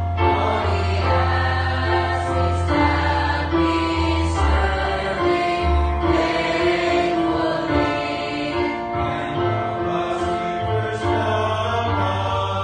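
Mixed church choir singing a hymn together in held, sustained phrases, backed by steady low bass notes of an accompaniment.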